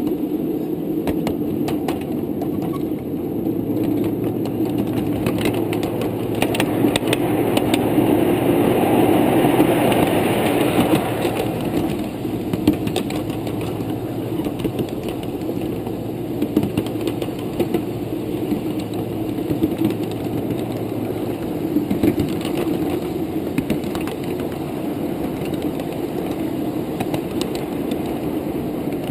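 Ride-on miniature train running along its track: a steady rumble of the train in motion, louder for a few seconds about a quarter of the way in, with scattered sharp clicks from the wheels on the rails.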